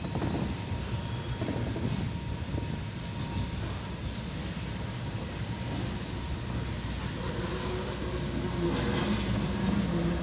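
Freight cars of a long mixed freight train rolling past at a grade crossing: a continuous rumble of steel wheels on the rails, getting louder near the end.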